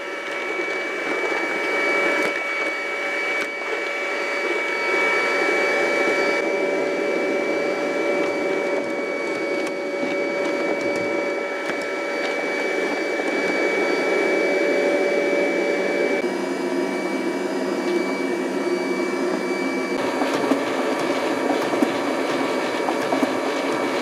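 CleanMate QQ-2 robot vacuum running, heard close up from on top of the machine: a steady whine of its suction fan and brush motors over a rushing noise. Its tone shifts about two-thirds of the way through and again a little later. The machine is working normally.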